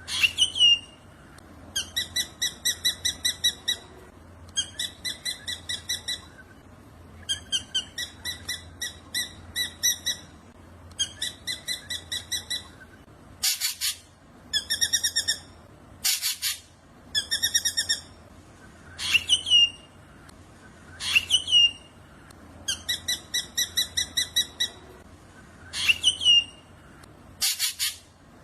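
Black drongo singing: repeated phrases of rapid, evenly spaced buzzy notes, about seven a second, each phrase lasting a second or so. Several sharp, loud single calls sweep up or down in pitch between the phrases.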